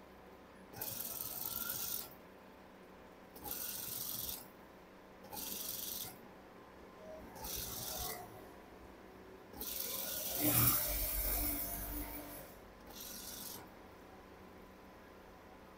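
Industrial single-needle lockstitch sewing machine stitching along a collar edge in short runs: six bursts of high whirring rattle about a second each, with pauses between them as the fabric is guided. The longest run, about three seconds, starts in the middle with a low thud and is the loudest.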